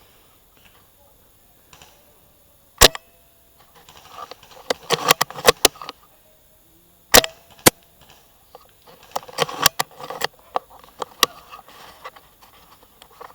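Suppressed SSG10 spring-powered airsoft sniper rifle firing, two sharp shots about four seconds apart, with a smaller crack just after the second. Between and after the shots come spells of quick clicks and rustling.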